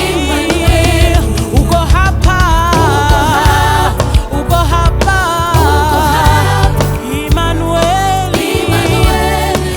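Gospel worship song in Swahili, with a sung melody over a band with heavy bass and drums.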